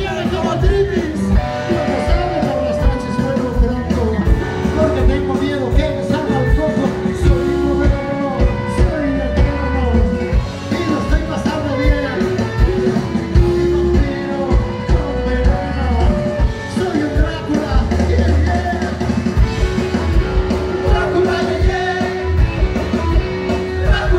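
Garage rock band playing live: electric guitars over a steady drum beat, with a singing voice.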